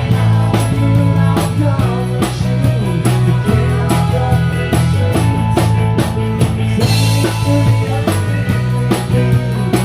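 Live rock band playing: a steady drum beat over a prominent electric bass line, with guitar and other instruments above, and a cymbal wash about seven seconds in.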